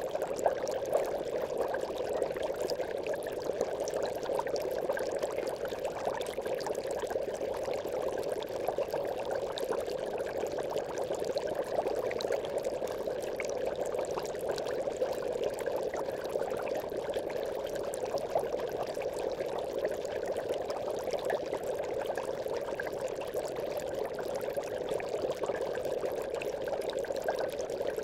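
Aquarium air bubbles rising and bursting in a continuous stream, steady and even, with faint small pops scattered through it.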